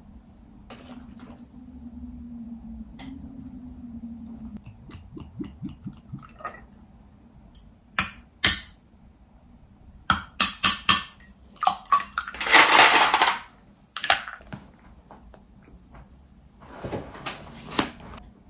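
A metal stirrer clinking and rattling against a drinking glass of beer as it is stirred: a run of sharp taps, then a longer rushing stir about halfway through, and more taps near the end.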